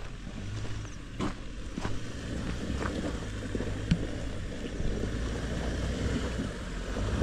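Toyota Fortuner SUV's engine running steadily at low revs as it crawls up a rocky dirt trail, with a few scattered clicks and knocks.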